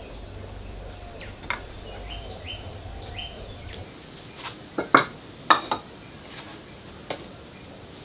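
Kitchenware clinking and knocking on a wooden counter as a plate and jars are set down and picked up: a handful of sharp knocks in the second half, two of them loudest. In the first half there are a few bird chirps over a steady high insect drone.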